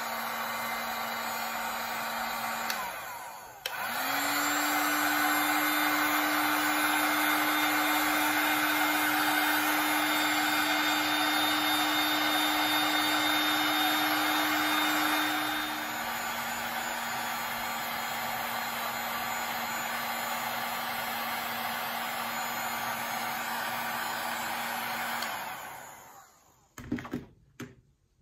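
Handheld electric heat gun blowing hot air onto a wax candle to melt its surface: a steady fan rush with a motor hum. About three seconds in it dips briefly, then runs louder and higher-pitched until about sixteen seconds in, drops back to its first pitch, and is switched off about twenty-five seconds in, followed by a few light knocks.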